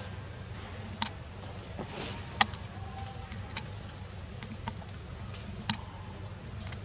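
About six sharp clicks or snaps at irregular intervals over a steady low rumble.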